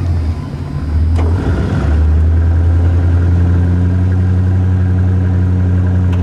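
Engine running to build up air pressure for a locomotive air horn. It runs unevenly at first, then settles into a steady idle about two seconds in.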